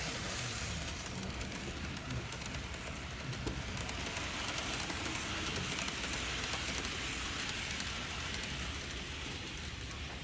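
N-gauge model train running on the layout track: a steady rattling hiss of the small wheels on the rails over a low motor rumble, a little louder around the middle.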